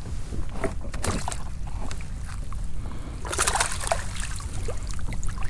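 Water sloshing and splashing against a fishing kayak, with a louder splash about three and a half seconds in, over a steady low wind rumble on the microphone.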